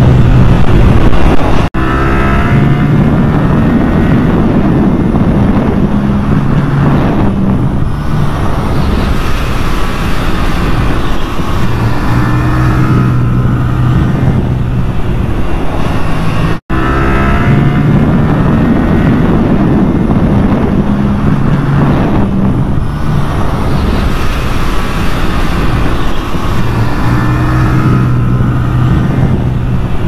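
Yamaha R7's 689 cc parallel-twin engine running hard on track, its pitch repeatedly rising and falling as the revs climb and drop. The sound cuts out for an instant twice, about two seconds in and about halfway through.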